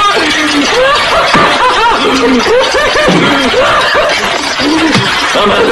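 Snickering, chuckling laughter: a run of short syllables whose pitch arcs up and down, over a loud, noisy background.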